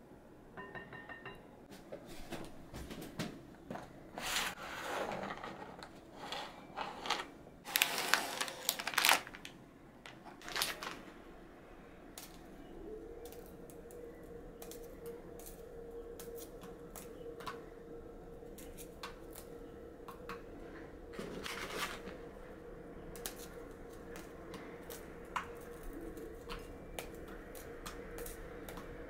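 Crinkling plastic packaging and crunching as Oreo cookies are crushed into small pieces, with two loud crinkling bursts in the first third. From a little under halfway a steady hum sets in under occasional light clicks.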